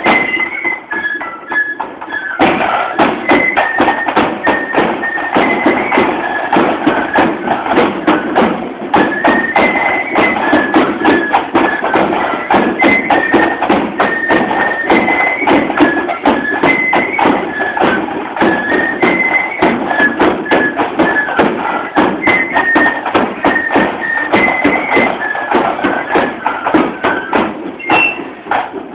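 Marching flute band playing a tune: flutes carry a high melody over a steady bass drum and drum beat. The playing drops away near the end.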